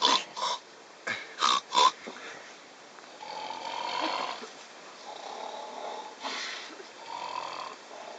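A person snoring: long rasping snores, each lasting a second or more, follow one another about every two seconds. The first two seconds carry a few short, loud sounds.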